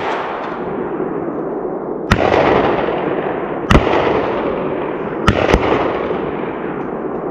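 A string of gunshots from two hunters firing at deer driven by dogs: sharp cracks a second or two apart, the last two close together, each trailing a long rolling echo.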